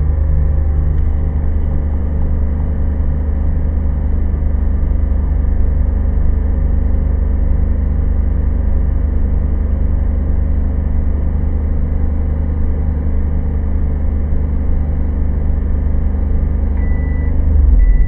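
Steady low hum of a 700-watt microwave running off a power inverter, mixed with a van engine held at raised revs to keep the alternator charging. Near the end the microwave beeps twice as its timer runs out and the hum changes as it shuts off.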